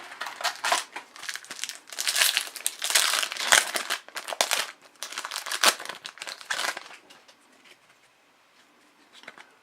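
An Upper Deck hockey card pack's wrapper crinkling and being torn open, a run of crackly rustles that stops about seven seconds in.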